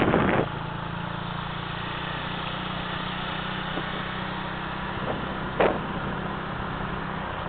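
Motorcycle engine running steadily at cruising speed, with road and wind noise over it. A louder rush at the very start and one short burst about five and a half seconds in.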